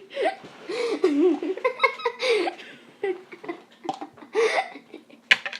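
A girl laughing and giggling in several short spells of high-pitched laughter.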